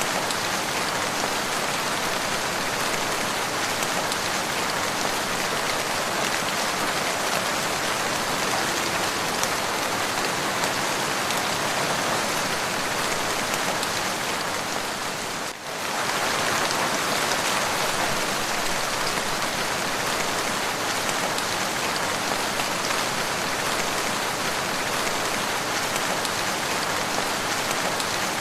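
Steady rain falling, an even hiss of many drops, with a brief dip in loudness about halfway through.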